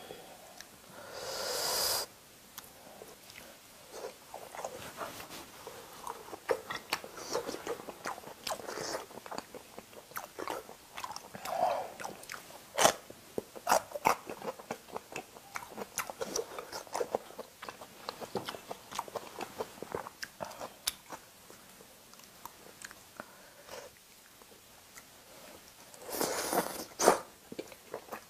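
A person chewing and biting grilled meat, a steady run of small wet mouth clicks, with two louder noisy bursts, one about a second in and one near the end.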